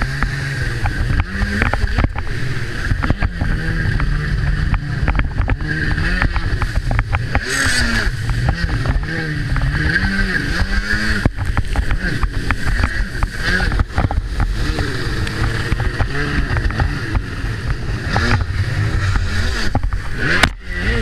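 Freeride jet ski's engine revving up and down repeatedly, with rushing wind and water noise.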